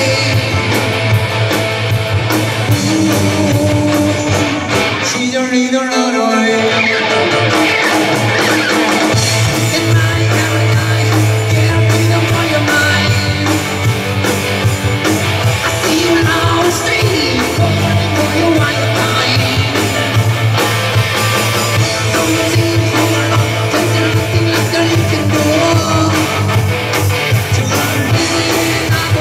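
Rock band playing live, with electric guitars, bass, drums and keyboard behind a singer. The low bass end drops out for a few seconds about five seconds in and comes back around nine seconds.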